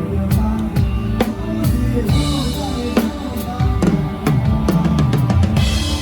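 Live drum kit played with a band, close to the drums: kick and snare strokes keep a steady beat over the band's bass line.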